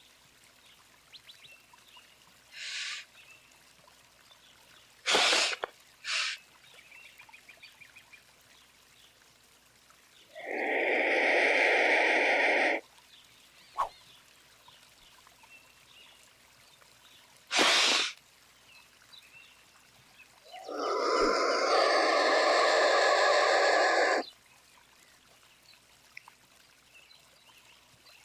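A bird calling in separate outbursts: a few short, sharp calls, then two long, harsh, rasping calls of about two and a half and four seconds.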